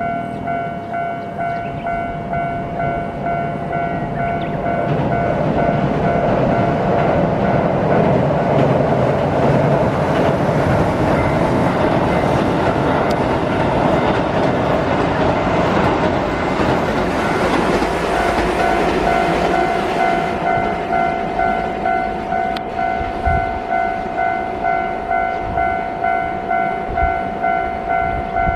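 A Keihan electric train crossing a steel railway bridge: a rumble and clatter that builds to its loudest in the middle and then eases off. Under it a steady ringing tone pulses about once a second.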